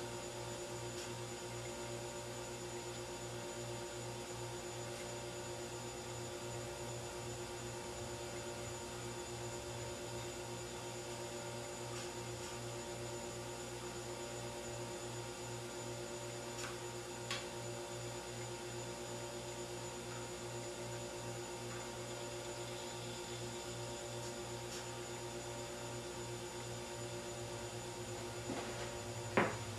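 Steady electrical hum, with a few faint ticks.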